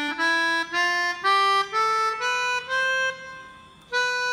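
Melodica playing the natural white-key scale one note at a time, about two notes a second, climbing step by step to the high do, which is held and fades. Near the end it starts again from the high note and steps back down. These are the plain natural notes, with no sharps or flats.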